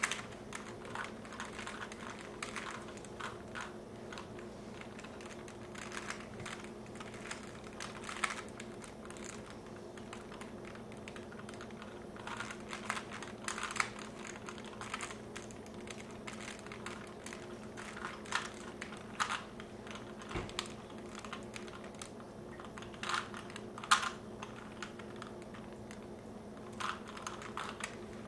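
3x3 Rubik's cubes being twisted rapidly by hand in a speed-solve race: a continuous, irregular clatter of plastic clicks and rattles from the turning layers. A low steady hum runs underneath.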